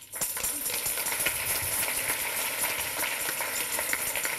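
Audience applauding, starting suddenly and continuing steadily as a dense clatter of many hands.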